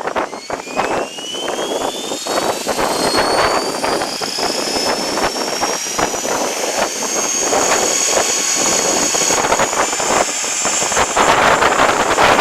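Align T-REX 500 electric RC helicopter's motor and rotor spooling up: a whine that rises in pitch over the first few seconds, then holds steady. Heavy wind buffets the microphone throughout.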